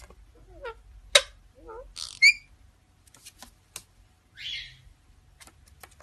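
A parrot calling in short bits: sharp clicks, small wavering chirps, a quick warbling whistle and a harsh screech.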